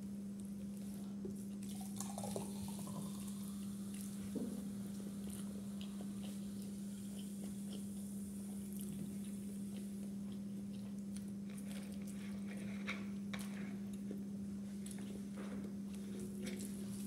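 Quiet sounds of eating by hand: fingers working rice on a plate and chewing, heard as scattered small clicks, over a steady low hum.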